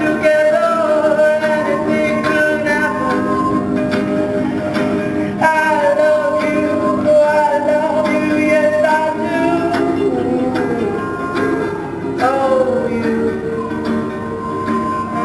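Music with singing and guitar: a melody of long, sliding held notes over a steady accompaniment.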